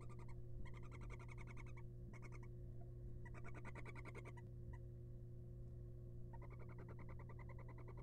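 Rapid, pulsed trilling calls in bursts of about half a second to a second and a half, several in the first half, a pause of nearly two seconds, then a longer run near the end, over a steady low hum.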